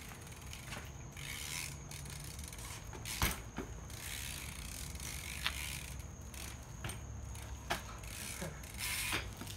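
BMX bike's rear hub ratcheting as the rider coasts and spins the cranks backward for a crank flip, with a few sharp knocks from the bike, the loudest about three seconds in.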